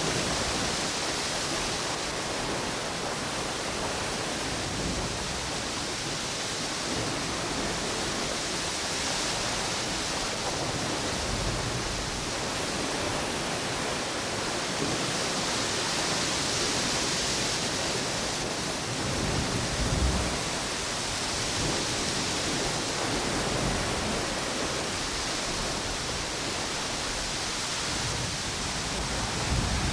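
Steady rush of ocean waves and wind on a beach, swelling and easing every several seconds, with a louder low surge about twenty seconds in.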